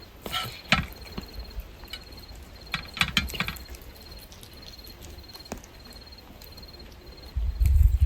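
A cricket chirping in short repeated trills throughout, with a few sharp clicks and rustles near the start and about three seconds in, and a low rumble near the end.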